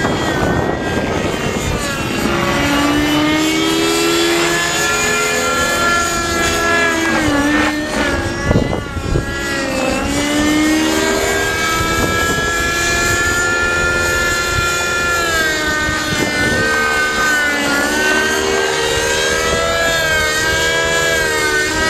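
Raptor 50 nitro RC helicopter in flight: its two-stroke glow engine with a tuned pipe and the rotor buzzing loudly, the pitch gliding up and down as the helicopter manoeuvres in idle-up.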